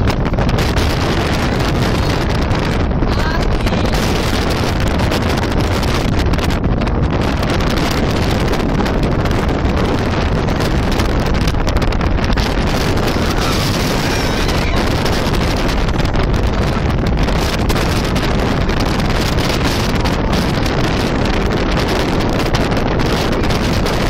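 Very strong wind blowing straight across a phone microphone: a loud, unbroken rush of wind noise.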